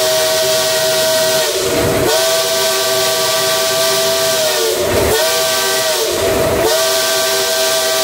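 Southern 4501's steam whistle blown long and loud from inside the cab: a chord of several notes over a strong steam hiss, sagging in pitch and briefly breaking three times, about two, five and six and a half seconds in, as the cord is eased and pulled again.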